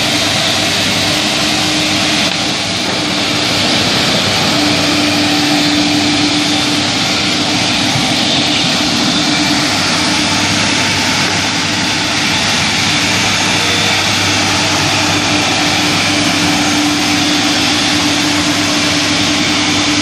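Corded electric walk-behind floor scrubber running steadily as it scrubs wet concrete: a loud, even motor rush with a steady low hum.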